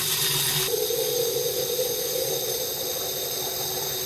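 Water jet running through a homemade aspirator vacuum pump made from plumbing parts, at about two litres a minute: a steady hiss. Less than a second in the sound steps up and a hum comes in, then holds steady.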